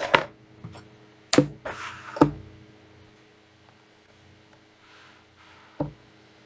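Handling noise on a wooden tabletop: a cardboard LEGO set box being shifted, with four knocks and a short scrape about two seconds in.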